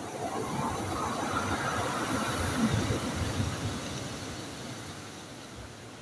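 Sea waves breaking on a pebble beach. The surf swells to its loudest about halfway through, then slowly dies away.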